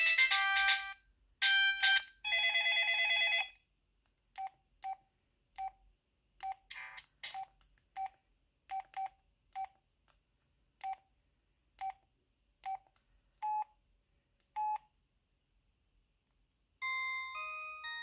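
Samsung SCH-U340 Snap flip phone playing a polyphonic ringtone melody that ends on a held note about three and a half seconds in, followed by about fifteen short identical key beeps spaced irregularly over the next ten seconds as the menu keys are pressed; near the end the next ringtone's melody starts.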